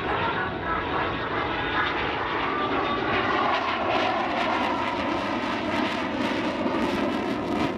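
Eurofighter Typhoon's twin EJ200 turbofans running in afterburner on a low pass: a loud, steady jet roar that turns crackly in the second half.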